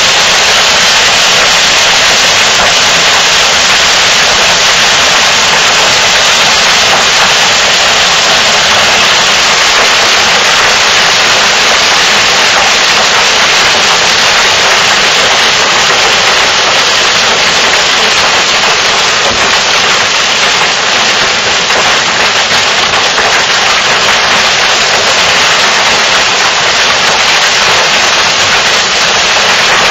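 Hailstones and heavy rain falling hard, a loud steady hiss of countless small impacts on the ground and a wooden deck.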